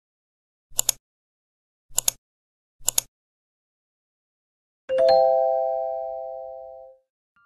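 Intro animation sound effects: three short clicks about a second apart as a loading bar fills, then a bell-like chime of a few tones together that rings out and fades over about two seconds as the bar reads complete.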